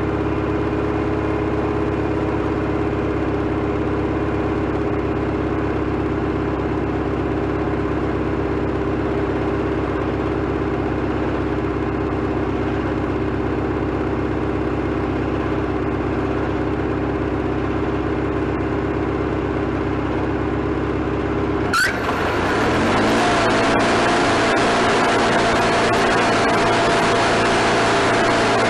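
Wood-Mizer LT40HD sawmill engine running steadily on a temporary fuel tank. About 22 seconds in, the sound changes abruptly to a slightly louder run with a higher steady tone that rises and then holds.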